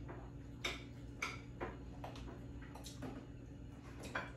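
Metal cutlery clicking against plates at an uneven pace, several light clicks with a short ring, over a low steady hum.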